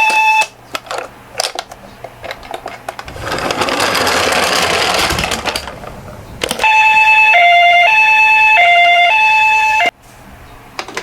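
Japanese two-tone ambulance siren ('pee-po'), alternating a high and a low note about every two-thirds of a second; it cuts off half a second in, returns about six and a half seconds in, and stops abruptly near the end. Between the two stretches come a few small clicks and about three seconds of rolling rattle as a die-cast toy minicar runs down a slope.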